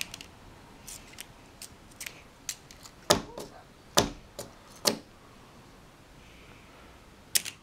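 Hard plastic clicks and taps from a Playmobil toy cannon and its small parts being handled and loaded, with three louder clicks about a second apart near the middle.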